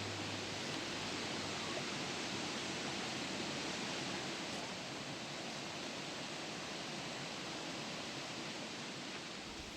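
Stream water flowing as a steady rushing hiss, easing slightly toward the end.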